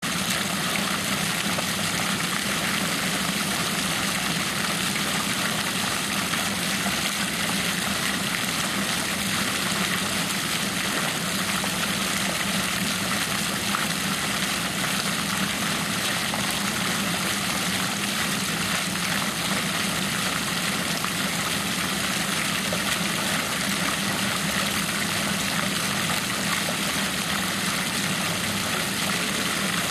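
Meltwater running in a steady, unbroken rush, with a steady low hum beneath it.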